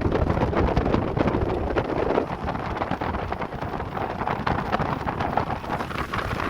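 Wind buffeting the microphone, a steady rushing with rapid flutter, over the running noise of a vehicle, gradually easing.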